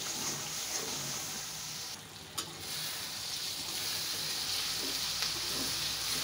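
Onion and spice paste sizzling in hot oil in an iron karahi while a metal spatula stirs and scrapes it: the masala being fried down before the meat goes in. The sizzle drops briefly with a single click about two seconds in.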